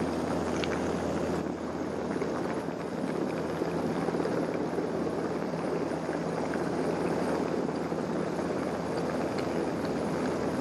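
Steady rotor and engine noise of a coastguard search-and-rescue helicopter, heard from on board.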